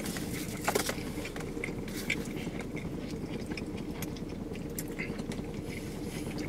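People chewing footlong chili-cheese hot dogs: soft, scattered mouth clicks and smacks over a steady low hum inside a car cabin.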